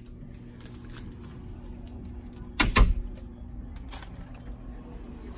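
A cabin door banging or latching once, sharply, about halfway through, with a fainter click about a second later, over a steady low hum.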